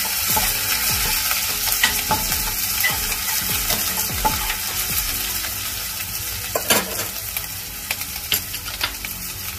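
Hot oil sizzling steadily as crushed ginger and garlic fry with cumin and mustard seeds in a tempering (tadka) in a stainless steel pot. A slotted spatula stirs and scrapes the pot, with scattered pops and clicks, while the sizzle slowly eases.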